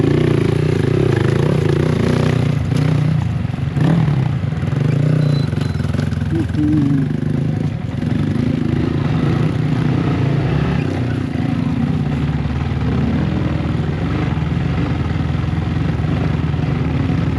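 Motorcycle engine with an aftermarket Akrapovic exhaust running steadily while being ridden, most likely a Yamaha MT-15.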